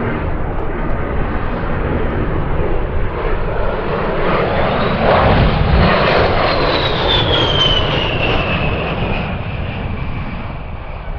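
A USAF A-10 Thunderbolt II's twin TF34 turbofans passing by in a display pass: jet noise that builds to its loudest about halfway through, then fades, with a high engine whine that falls in pitch as the aircraft goes past.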